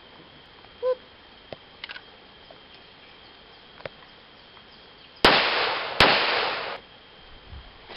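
A few faint clicks, then two loud shots from a Glock .45 ACP pistol about three quarters of a second apart, each with a long ringing tail, fired to break in the new gun.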